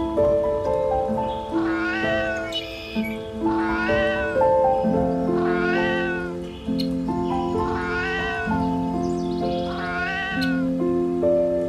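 An animal's drawn-out call, rising then falling in pitch, repeated five times about every two seconds, over background music with steady held notes.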